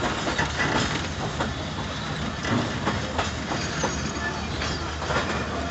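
Rehman Baba Express passenger coaches rolling along the track, heard from an open coach window. The wheels keep up a steady rumble, broken by irregular sharp clacks as they run over rail joints and points.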